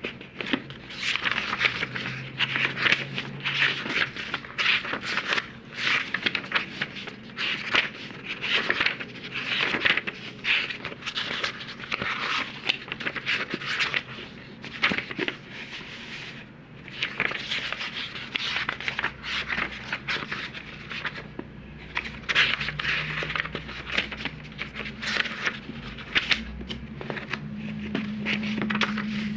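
Book pages being flipped quickly one after another, a rapid run of papery swishes and rustles, several turns a second, with a couple of brief pauses.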